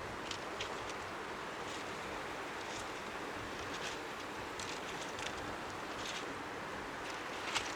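Strong sea wind making a steady rushing noise over faint waves lapping on the shore, with scattered short crackles, the loudest one near the end.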